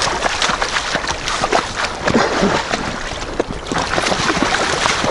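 Water splashing in the shallows with scattered knocks and bumps as a loaded inflatable boat is pulled up onto the shore.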